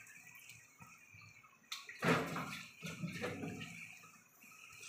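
Metal spatula stirring wet shrimp paste into garlic and oil in a metal wok: soft wet scraping and squelching, louder from just under two seconds in for about a second and a half.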